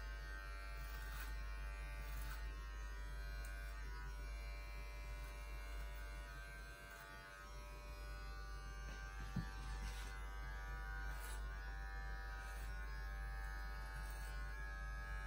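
Electric hair clippers buzzing steadily as they cut a man's hair. The buzz dips slightly about halfway, and a single sharp click comes soon after.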